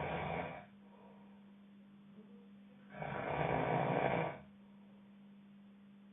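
A sleeping person snoring: one snore dies away just under a second in, and a second snore of about a second and a half comes about three seconds in. A steady low hum runs underneath.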